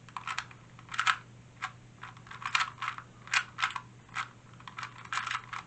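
Plastic clicking and clacking of a 2x2 speed cube being turned fast during a timed solve, in irregular flurries of quick turns with short pauses between them.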